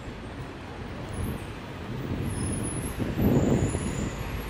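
Street traffic rumble on a city street, swelling louder for about half a second a little past three seconds in.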